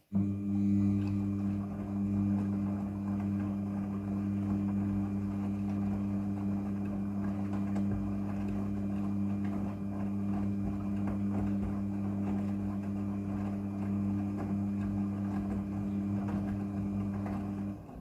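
Front-loading washing machine running a wash: a steady motor hum under the swish of wet clothes tumbling in the turning drum. It cuts off abruptly near the end.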